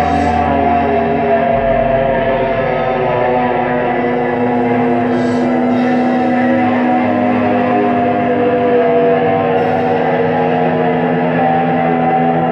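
Rock band playing live through a phone microphone: a slow, sustained passage of long held droning chords over a deep bass tone, with brief faint swishes now and then and no steady beat.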